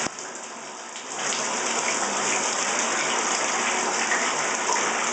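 Water splashing in a bathtub as cupfuls are poured over a wet West Highland white terrier to rinse it, a steady pattering splash that is softer for about the first second.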